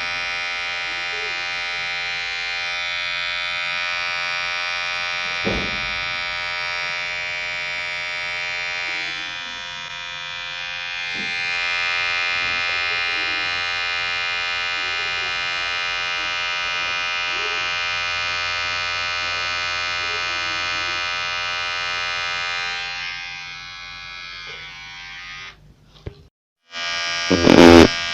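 Electric hair clipper buzzing steadily, with a faint click about five seconds in. Near the end the buzz fades and cuts out for about a second, then a loud short burst comes as the sound returns.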